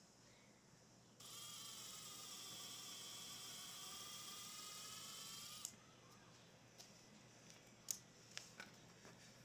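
A small power tool's motor runs with a whine for about four and a half seconds, starting suddenly and cutting off abruptly, then a few light clicks and taps of handling follow.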